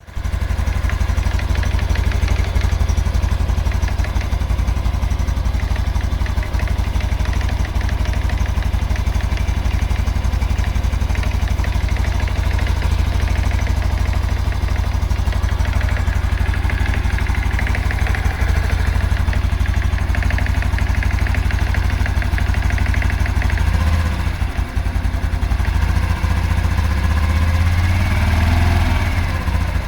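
2022 Honda Super Cub's single-cylinder four-stroke engine idling steadily with a knocking at idle, which the owner thinks comes from the clutch plate area. The pitch rises and falls briefly near the end.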